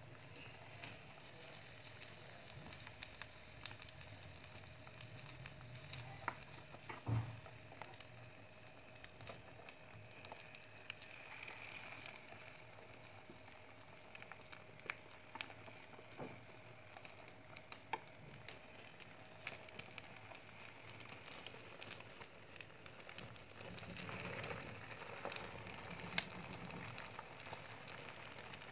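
Thin egg-and-spring-onion omelette sizzling quietly in an oiled frying pan as it is rolled, with many small crackles and scattered light taps of the chopsticks and spoon against the pan. One louder knock comes about seven seconds in.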